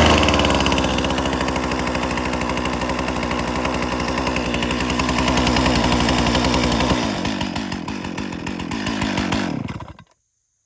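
Gasoline two-stroke chainsaw running just after being pull-started with the choke set. Its engine note shifts about seven seconds in, and it cuts off about ten seconds in.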